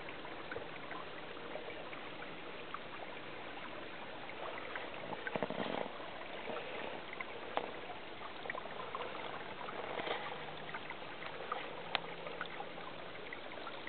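A steady rush of running water, with footsteps scuffing and clicking on grass and stones now and then, loudest about five and ten seconds in.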